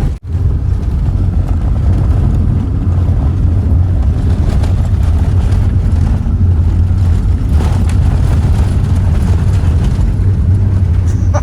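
Cabin noise inside a 1992 Holden VP Commodore driving on a gravel dirt road: a steady low rumble of engine and tyres on gravel. It drops out for a moment just after the start.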